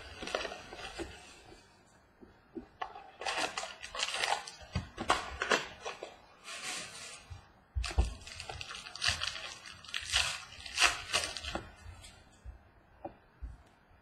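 Hands opening a mini box of football trading cards and handling the cards: short irregular bursts of tearing and rustling, with a few light knocks on the table.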